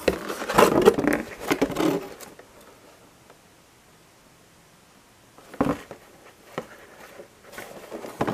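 Hands handling a clear plastic clamshell package and a paper leaflet: crinkling and rustling for about two seconds, then a quiet stretch broken by a few light taps and clicks.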